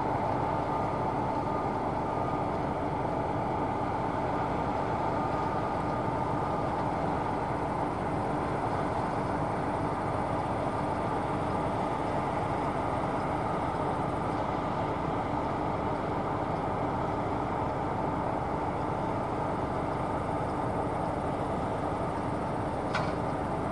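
Claas Tucano 480 combine harvester running steadily as it harvests wheat: a constant mechanical rumble with a steady whine over it. A brief sharp click sounds near the end.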